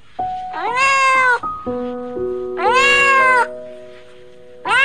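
A cat meowing: two long meows, each rising then falling in pitch, and a third starting near the end, over background music of held notes.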